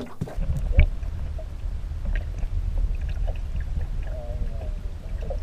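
Muffled sound from a camera held underwater in a lake: a steady low rumble of water, with one sharp knock just under a second in.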